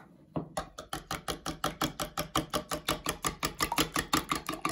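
Metal wire whisk beating egg into a flour-and-water mixture in a ceramic bowl. The wires click against the bowl in a quick, even rhythm of about seven strokes a second, starting about half a second in.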